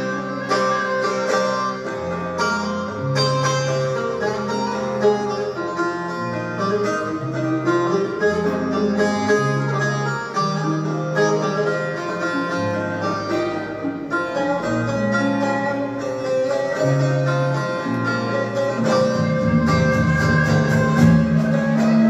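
Turkish folk music ensemble playing live, led by plucked strings (bağlama and acoustic guitar) over a low line that steps from note to note about once a second. The sound grows fuller and louder about nineteen seconds in.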